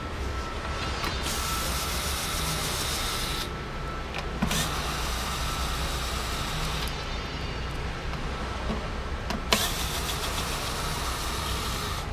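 Cordless drill/driver running in three bursts of a few seconds each, each starting with a click, as it backs out Allen-head screws.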